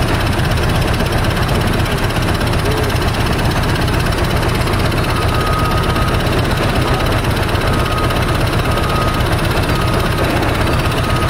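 Steady low rumble and hiss inside a Siemens C651 MRT train carriage. From about halfway a thin high beeping tone comes and goes, roughly once a second.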